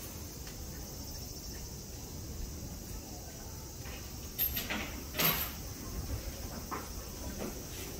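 A steady, high insect chorus, with a few short knocks about four and five seconds in.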